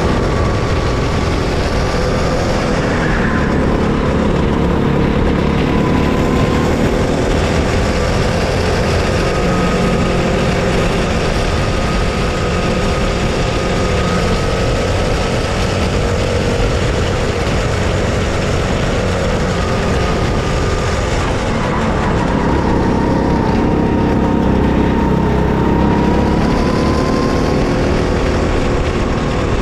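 Racing kart's engine heard from the driver's seat at race pace, its pitch rising and falling as the kart brakes into corners and accelerates out, dipping most deeply about two-thirds of the way through. A steady low rumble runs underneath.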